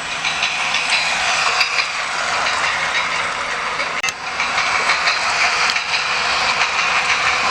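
Battery-powered Adventure Force toy steam train running around its track, giving a steady hiss of steam-engine sound effect and running noise, with a few sharp clicks.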